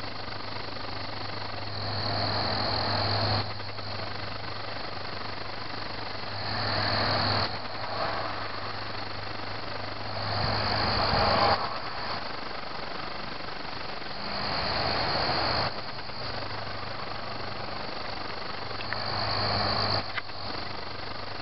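Crickets chirping in a garden chorus, a high steady trill that swells about every four seconds, over a steady low hum.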